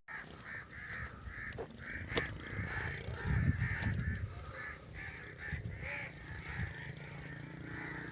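Crows cawing over and over, about two calls a second.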